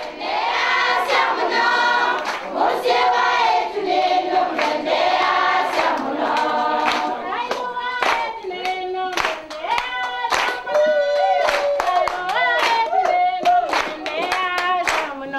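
A group of children and women singing together in chorus with hand clapping; from about eight seconds in the claps come through as a steady beat.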